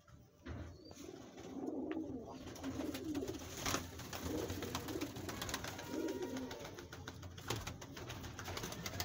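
A flock of fantail pigeons cooing, many low coos overlapping one after another, with scattered light clicks.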